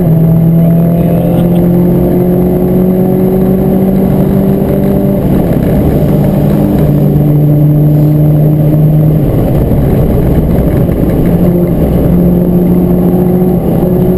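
Renault Clio 172 Cup's 2.0-litre four-cylinder engine running at speed on track, heard from inside the cabin. Its pitch drops with a gear change at the start, then holds nearly steady, breaks up briefly about nine seconds in, and steadies again.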